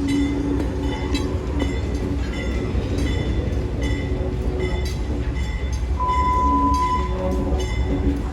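Union Pacific freight train running, a steady low rumble with faint regular clicks about once a second. A brief steady tone sounds about six seconds in.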